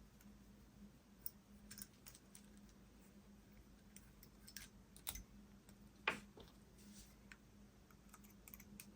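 Faint, scattered clicks of small plastic and metal wheel parts being handled as 1/24-scale RC crawler wheels with weight rings are taken apart, over a faint steady hum.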